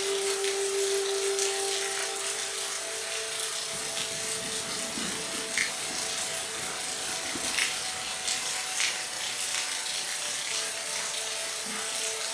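Rain falling in a steady hiss, with scattered individual drops ticking. A steady low hum runs underneath, louder in the first few seconds.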